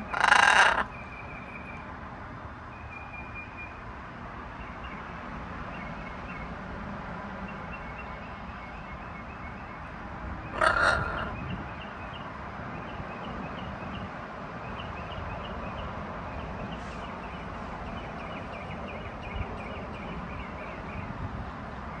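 A blue-and-gold macaw gives two loud, harsh squawks, one at the very start and another about ten seconds later. Between them, wild songbirds chirp in short repeated phrases in the background.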